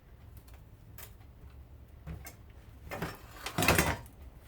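Parts of a garbage disposal being handled during disassembly: a few light clicks and taps, then a louder scraping rattle of about half a second near the end.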